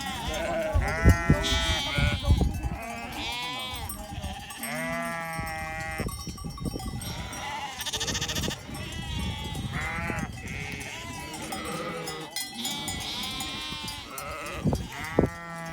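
Flock of sheep bleating, many quavering calls overlapping one after another.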